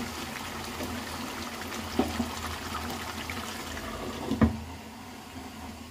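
Chicken, tomato and potato curry simmering and bubbling in an open pot, with a small knock about two seconds in. About four and a half seconds in, a glass lid clinks down onto the pot, and the simmering is quieter after that.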